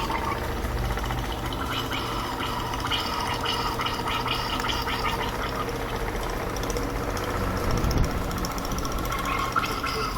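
Rebuilt BMW E39 variable-displacement air-conditioning compressor running steadily on a test rig, with oil gurgling through it as its cylinders are flushed. A single knock comes about eight seconds in.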